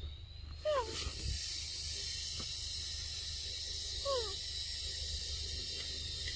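Steady high-pitched hiss of forest insects, with two short falling calls, one about a second in and another about four seconds in.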